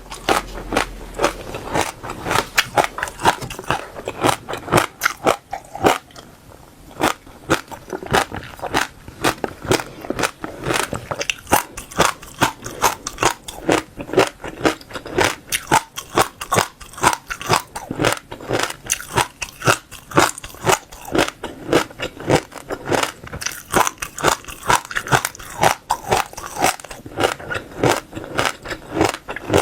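Close-miked chewing of passion fruit seeds: a fast, irregular run of crisp crunches and cracks, several a second, that eases briefly about six seconds in.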